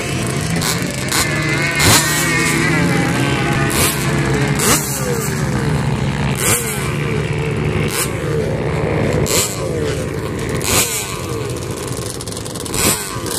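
Several sand-quad ATV engines running together, idling with repeated revs that rise and fall in pitch.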